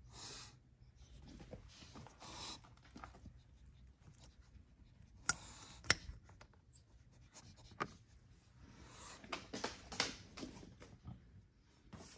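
Hands handling plastic door-sill trim and the wiring-harness clips beneath it: scraping and rustling with scattered sharp plastic clicks, the two loudest close together a little past halfway.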